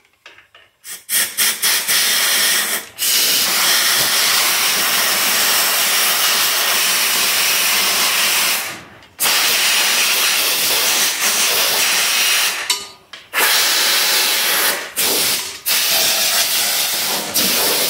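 Compressed-air blow gun hissing as it blasts grass clippings and debris out from under a push mower's deck and belt area. A few quick spurts, then long loud blasts broken by short pauses.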